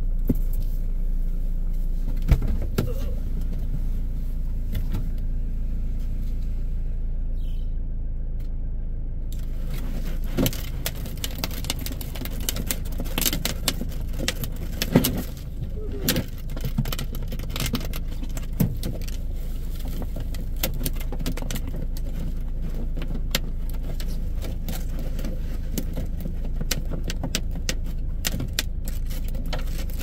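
Car engine idling steadily, heard from inside the cabin, while the windshield wipers sweep the glass. A knock comes about two seconds in, and many light clicks and taps follow through the second half.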